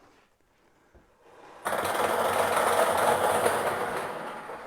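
A tube of numbered plastic draw balls rattling hard for nearly three seconds, starting suddenly after a quiet start and tailing off near the end.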